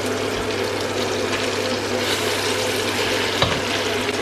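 Beetroot and spinach sizzling in a stainless steel pot on a gas hob while a wooden spoon stirs them, over a steady low hum. A single sharp knock, likely the spoon against the pot, comes about three and a half seconds in.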